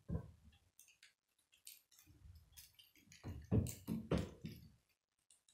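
Plastic K'nex rods and connectors clicking and rattling as they are snapped together by hand. There is one sharp click at the start and a cluster of louder clicks and knocks about three to four and a half seconds in.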